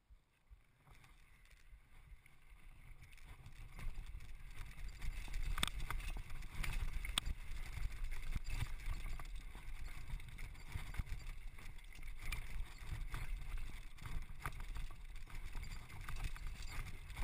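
Downhill mountain bike descending a rough rocky dirt trail: wind rumbling on the rider's camera microphone, with tyres crunching over stones and rattling knocks from the bike over the bumps. Quiet at first, it grows louder about four seconds in as the bike picks up speed.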